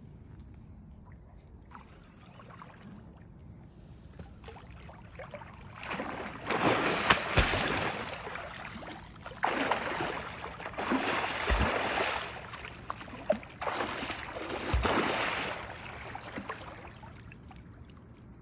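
A big hooked sturgeon thrashing at the surface in shallow water. After a few quieter seconds come four bouts of heavy splashing, with three deep thumps as its body slaps the water.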